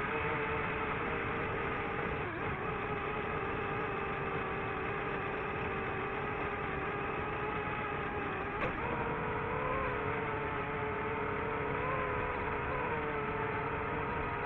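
DJI FPV drone's motors and propellers whining in flight at a mostly steady pitch, with small upward wobbles in the second half and a brief tick about nine seconds in.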